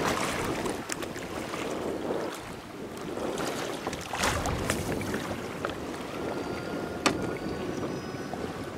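Wind and choppy water lapping and splashing against a plastic kayak hull, with a sharp click about seven seconds in.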